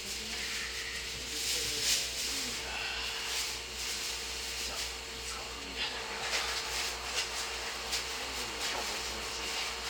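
Cabin ambience of a stationary Izuhakone Railway 3000 series train: a steady electrical hum and an even hiss of air from the onboard equipment, with faint voices and a few light clicks.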